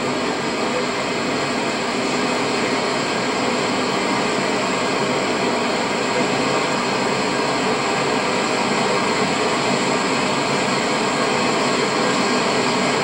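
Steady road and wind noise of a moving vehicle heard from inside: an even rushing hiss with no distinct events, a little louder after the first couple of seconds.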